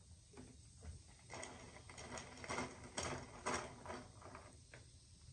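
Faint crackling and small clicks from a plastic bottle of grape soda being handled just after pouring, with the freshly poured carbonated soda fizzing in a glass mug.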